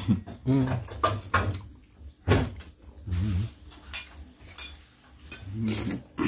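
Crockery and a metal serving spoon clinking a few times against bowls and a pot, between short low male voice sounds.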